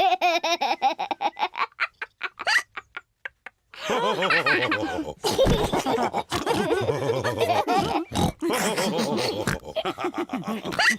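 A short run of quick clicks and a brief pause, then several cartoon pig voices laughing and snorting together.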